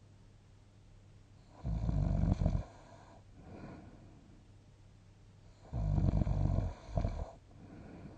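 A sleeping person snoring: two loud snores about four seconds apart, each followed by a soft breath out. The second snore ends in a short extra snort.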